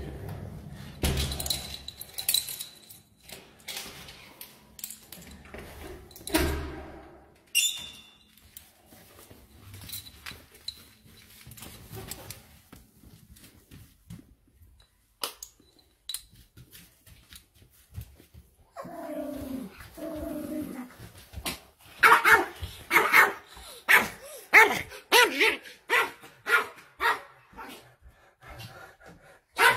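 A dog barking in a loud, regular run, about two barks a second, through the last eight seconds, after a drawn-out whine-like call about 19 seconds in. Earlier come scattered knocks and taps.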